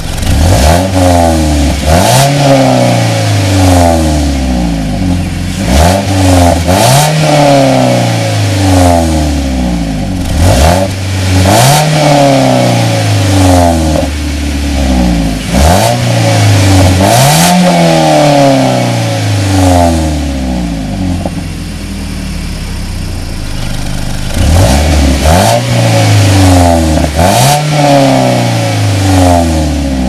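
2012 Mazda3 Skyactiv's 2.0-litre four-cylinder engine heard at its single exhaust tip, revved in quick throttle blips that rise sharply and fall back to idle, about one every two seconds. It settles at idle for a few seconds about two-thirds of the way in, then the blips resume.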